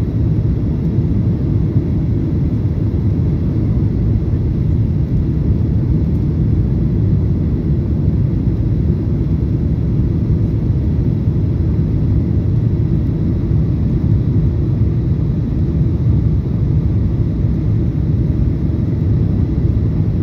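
Cabin noise of a Boeing 737-800 descending on approach to land: a steady low rumble from inside the cabin, unchanging throughout.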